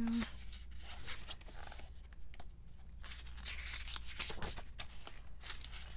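Glossy pages of a K-pop album photobook being turned and handled, with irregular paper rustles and light clicks.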